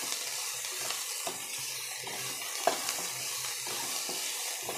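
Chopped onions, green chillies and curry leaves frying in hot oil in a kadai with a steady sizzle, stirred with a spatula that scrapes against the pan now and then.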